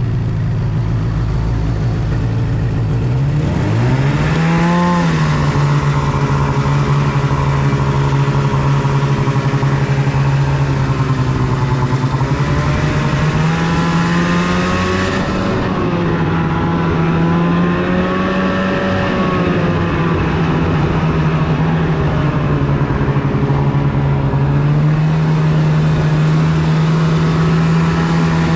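Snowmobile engine running under way. It revs up about three to four seconds in, then holds a fairly steady pitch that rises and falls slightly with the throttle.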